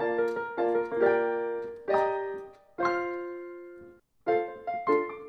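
Background piano music: plucked-sounding notes and chords, with a held chord fading away about three seconds in, a short gap, then quicker notes starting up again.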